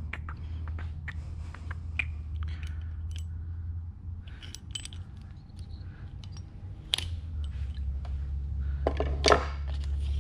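Small metal clicks and clinks as a pushrod tube retaining clip on a Harley-Davidson Twin Cam engine is handled and snapped into place, with a louder cluster of clicks about nine seconds in. A steady low hum runs underneath.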